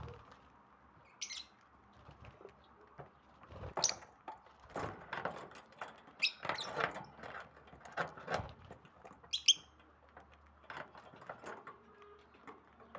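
Lovebirds giving short, high chirps every few seconds, among scattered rustling and sharp little clicks and taps.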